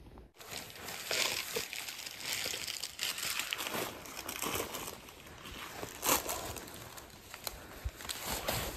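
Irregular crunching and rustling of hikers walking up a forest trail: footfalls on dry ground and the rustle of packs and clothing, with a few sharper crunches.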